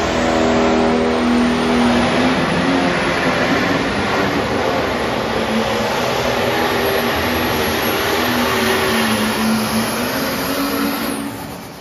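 Modified pulling tractor's engine running flat out as it drags a weight-transfer sled down the track, its pitch sagging and climbing under the load, with a high whine over the roar. The engine note falls away about a second before the end as the pull finishes.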